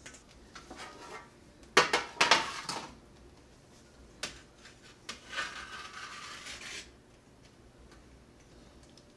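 Kitchen dishes clattering as the thawed silkworms are drained: a sharp clatter of several knocks about two seconds in, a single click, then about a second and a half of rushing noise.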